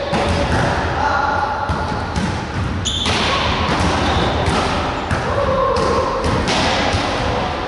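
Indoor volleyball rally in a large gym: a volleyball struck sharply several times, with players' voices calling out between the hits.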